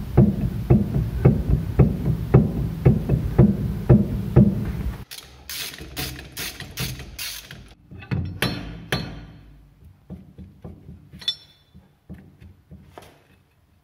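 Rhythmic metallic clink-clank from a car's limited-slip differential as it turns, about two knocks a second at first, then scattered sharper clicks. The clinking is the sign of wheel bearings in the diff that were slightly undersized and not properly interference-fitted.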